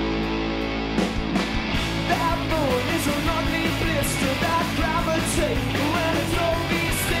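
A live rock band plays: electric guitars, bass guitar and drums. A held chord rings out, then the band crashes back in about a second in, with voices singing over it and cymbal crashes.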